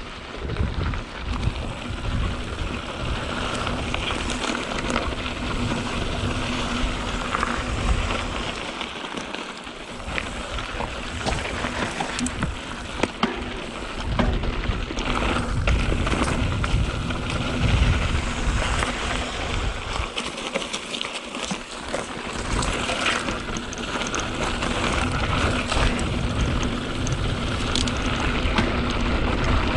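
Canyon Spectral 7 mountain bike rolling down a dirt trail: wind buffeting the microphone, tyres on loose ground and the bike rattling over bumps. The noise eases briefly twice, as the bike slows.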